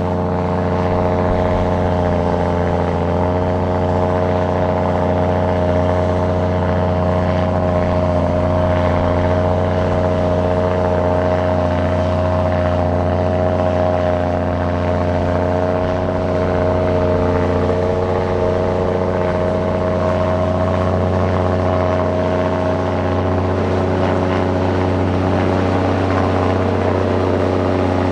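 Diesel engine of heavy earthmoving machinery running steadily at a near-constant speed, a continuous low drone with only slight shifts in pitch.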